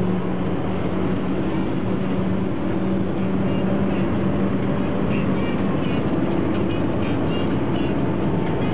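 Car engine running at a steady pace with tyre and road noise, heard from inside the cabin.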